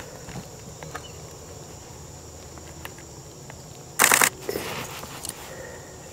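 Canoe being paddled: scattered light knocks and drips from the paddle, with one loud short splash about four seconds in and a smaller one just after.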